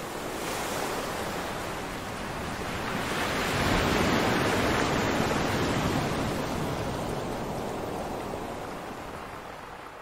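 Rushing ocean surf, a wave breaking, that swells to its loudest about halfway through and then slowly fades out.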